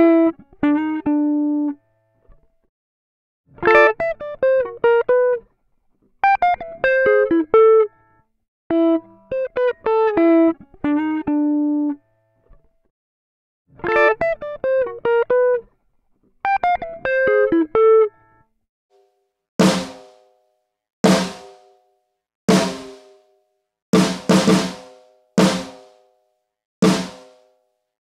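Short picked guitar phrases with raked strums across the strings, run through a compressor that tames the pick attack, each phrase a couple of seconds long with short gaps between. About two-thirds of the way in, single snare drum hits take over, roughly one every second and a half with a long ringing tail, a few coming in quick pairs near the end.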